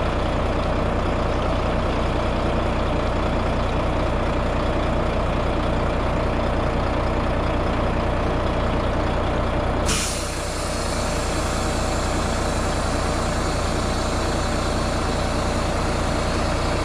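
Heavy truck diesel engine idling steadily. About ten seconds in, a short sharp hiss of released compressed air.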